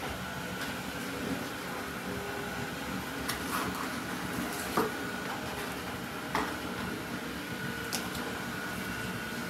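Steady kitchen background hum with a faint high whine, and a few faint short knocks and taps as boiled cabbage leaves are handled and cut with a knife.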